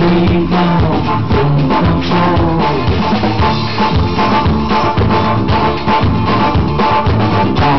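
Live band playing, with a drum kit and bass keeping a steady, rhythmic beat.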